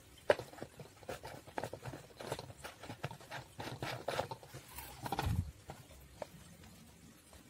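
Clear plastic soda bottle handled by hand: its thin walls crinkle and click, with a sharp click near the start and a dull thump about five seconds in.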